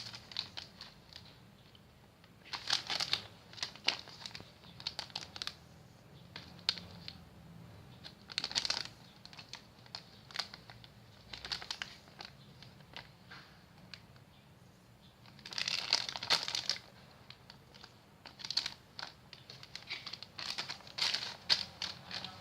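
Plastic packaging crinkling in irregular bursts of crackle as it is handled, likely the wrapping of an egg-shaped squishy toy.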